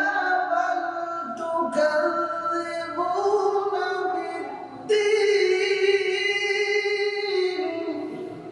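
A man reciting the Quran in melodic tajweed style, holding long, wavering notes over two phrases; the second phrase begins about five seconds in and fades out near the end.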